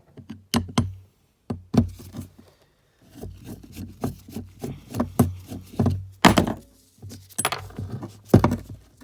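Irregular hard knocks and clunks, about a dozen, from a Phillips screwdriver and the parts of an ATV kickstarter being worked and handled while it is taken apart. The loudest knocks come about six and eight seconds in.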